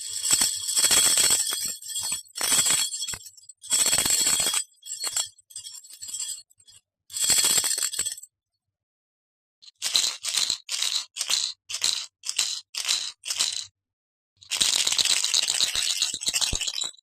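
Small metal objects shaken, making a bright jingling rattle. There are long shakes at first, then a quick run of about eight short shakes, then one long shake near the end, with silent gaps between.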